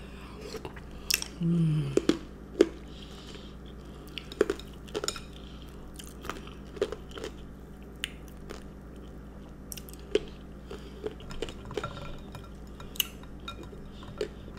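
A person chewing and crunching food close to the microphone, with scattered sharp clicks and clinks of ice and a dish. There is a brief hummed sound about a second and a half in.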